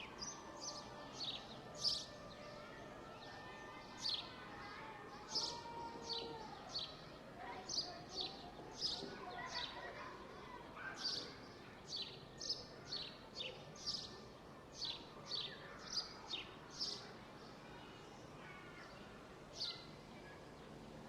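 Small songbird chirping: a string of short, high, downward-sliding chirps, irregularly spaced, that thins out near the end, over steady park background noise.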